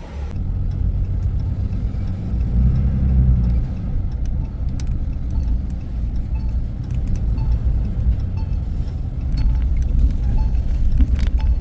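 Steady low engine and road rumble heard inside a moving vehicle's cab.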